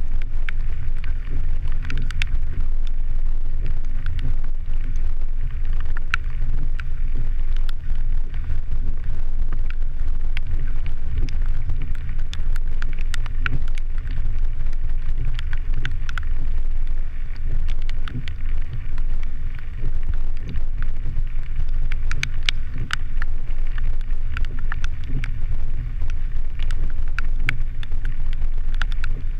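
Vehicle driving a wet dirt road, picked up by a GoPro Hero 3: a loud, steady low rumble of wind and road noise, with many scattered sharp ticks throughout.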